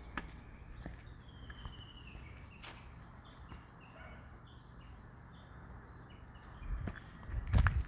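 Small birds chirping repeatedly in short high notes over a steady low rumble of wind on the microphone, with one loud low thump near the end.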